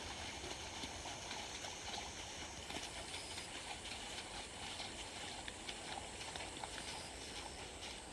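A steady chorus of grass insects with scattered, irregular horse hoof clops.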